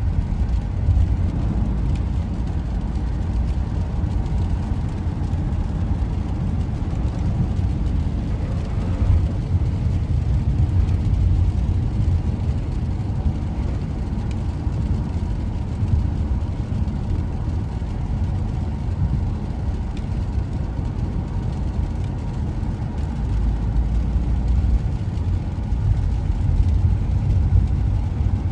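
Steady low rumble of a vehicle running, with no clear changes.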